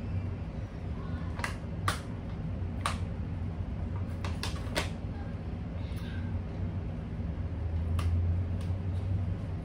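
Thin plastic water bottle crackling and clicking as it is handled and drunk from: a scattering of sharp single clicks, with a cluster around the drink, over a steady low hum.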